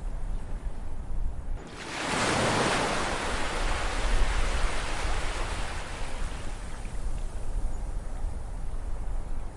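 An ocean wave breaking about two seconds in, then washing up and slowly fading, over a steady low rumble of surf.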